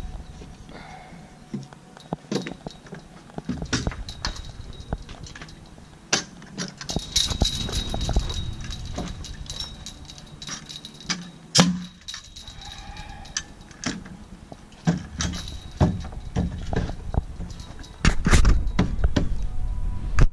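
Irregular knocks, thunks and rattles of fence boards, a level and tools being handled during wooden fence building, with one sharper bang about two-thirds of the way through.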